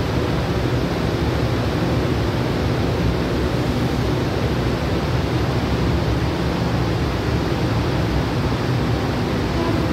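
Steady, even rushing noise of a large train station platform, with no distinct train or announcement sounds standing out.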